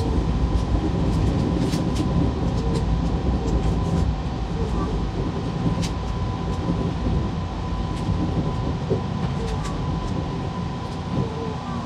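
Electric commuter train running along the track, heard from its driver's cab: a steady low rumble with a faint steady whine and scattered sharp clicks from the wheels on the rails, easing slightly in loudness toward the end.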